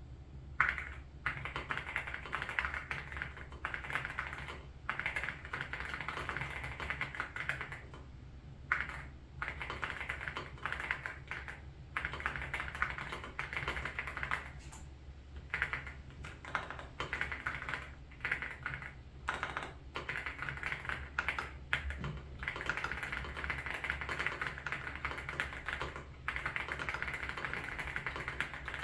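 Fast typing on a mechanical keyboard fitted with Haimu Ice Silver switches: a dense run of crisp keystroke clacks in stretches of several seconds, broken by brief pauses.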